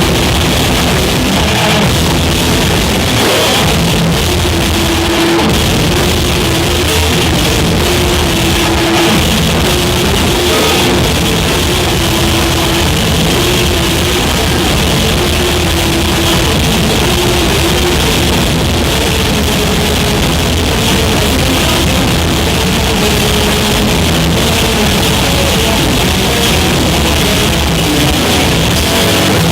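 Rock band playing a song live, loud and steady throughout.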